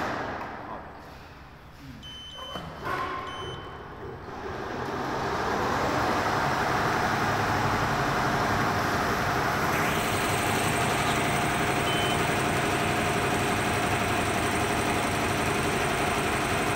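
Two short electronic beeps from a Richpeace two-head embroidery machine, then the machine starts up and runs stitching, its steady mechanical running noise building over a couple of seconds and holding.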